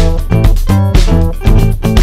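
Background music: plucked guitar and bass over a steady beat of about two beats a second.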